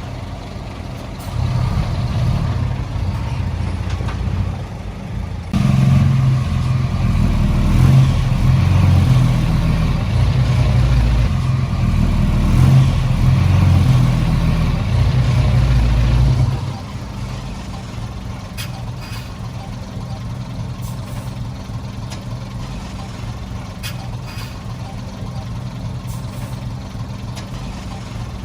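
Heavy-equipment diesel engine running. It works harder in two steps, about one and five seconds in, then drops back to a steady lower running level about sixteen seconds in.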